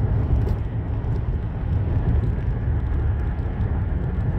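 Steady road noise inside a car cruising on an expressway: an even, deep rumble of tyres and engine.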